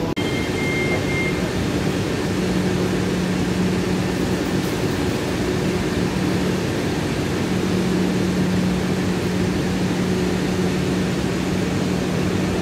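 Heathrow Express electric train standing at the platform with its equipment running: a steady low hum over an even rushing noise.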